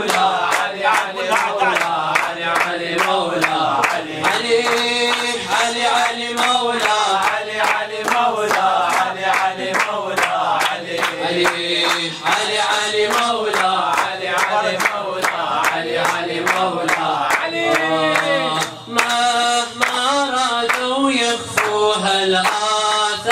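Male voice chanting an Arabic nasheed, with steady rhythmic hand-clapping along to it at about two claps a second.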